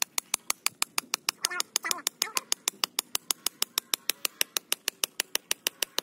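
Hammer rapidly striking the top of a steel breaker bar, an even run of sharp metallic clinks at about six a second. The bar is being driven into hard-packed dirt to make a pilot hole.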